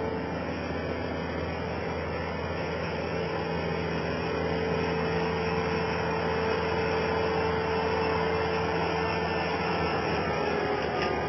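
Skid steer loader's engine running steadily with a constant drone.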